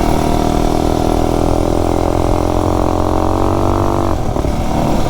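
Tillotson 263 single-cylinder four-stroke engine on a minibike pulling under throttle, its pitch climbing steadily, then dropping away suddenly about four seconds in as the throttle is let off. The engine is jetted rich, which the rider says makes it stutter when he gets on it.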